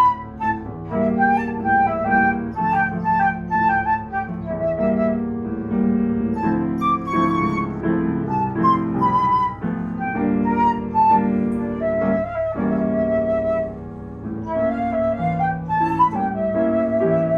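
Flute playing a solo melody over piano chords.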